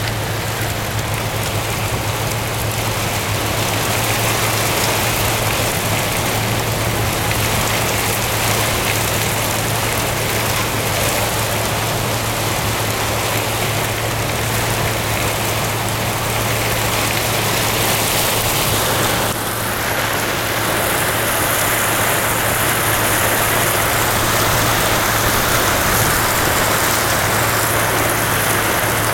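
Heavy rain pounding on a car's roof and windows, heard from inside the car, with a steady low hum underneath. The rain is a little louder after about twenty seconds.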